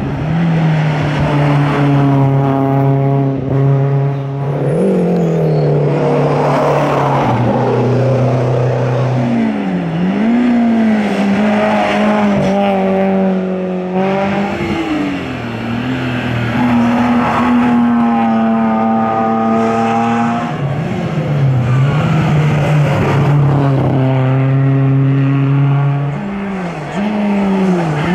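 Competition car engine running hard on a hillclimb, holding high revs, then dropping and climbing in pitch several times as it lifts, brakes and changes gear for bends.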